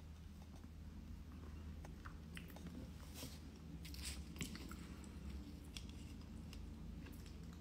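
A person quietly chewing a mouthful of roasted sweet potato, with small wet mouth clicks.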